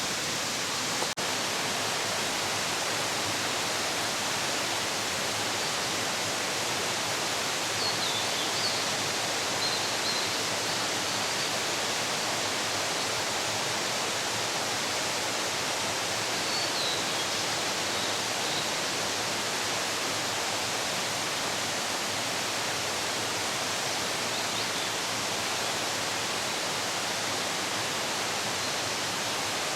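Steady rushing noise of running water, with faint high bird chirps a third of the way in and again just past the middle.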